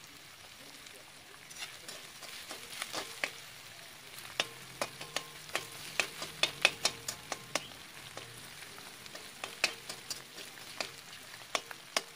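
A metal spatula stirring onion, garlic, ginger and fermented fish frying in a wok, over a soft sizzle. The spatula clacks and scrapes irregularly against the pan, most busily in the middle and again near the end.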